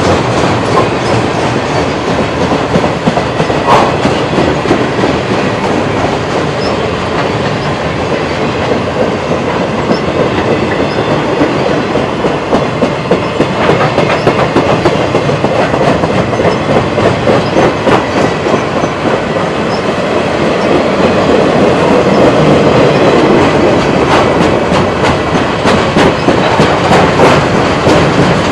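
Freight train of loaded flatcars rolling past close by, steel wheels clattering over the rail joints without a break.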